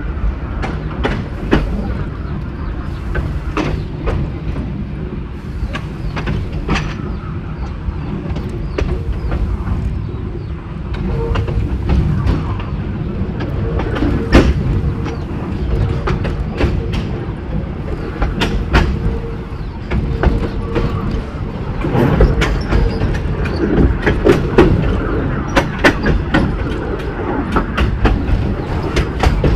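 Narrow gauge train running, with a steady low rumble and repeated sharp clicks of wheels over the rail joints. A steady tone rides over it for about ten seconds midway.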